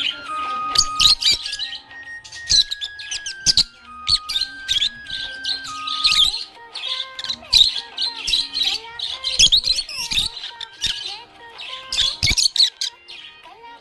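Budgerigars chirping and warbling in quick, busy bursts over background music, a simple melody of held notes stepping up and down.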